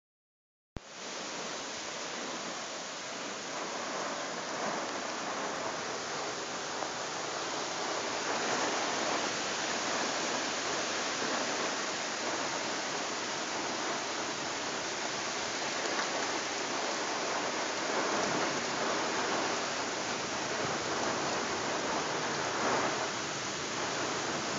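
Heavy rain pouring down steadily in a storm, beginning with a click about a second in.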